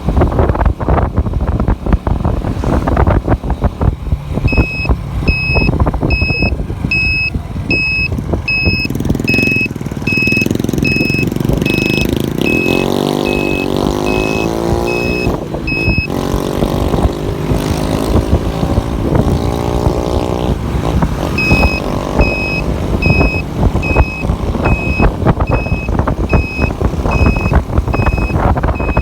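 Wind buffeting the microphone and road noise on a moving motorcycle. An electronic beeper sounds about twice a second in two long stretches. Between the stretches an engine's pitch rises and falls.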